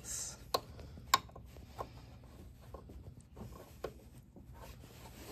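Small clicks and rubbing as a wire and its plastic connector are handled against a plasma cutter's circuit board and sheet-metal case. The two sharpest clicks come about half a second and just over a second in.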